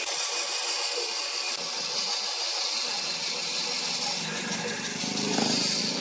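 Woodworking power tool running with a steady hissing noise. The sound changes abruptly about a second and a half in, and a lower hum builds in the second half.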